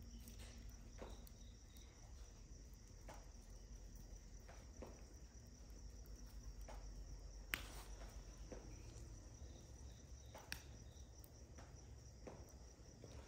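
Crickets trilling steadily in a high thin tone, with a log fire giving scattered crackles and pops; the sharpest pops come about seven and a half and ten and a half seconds in.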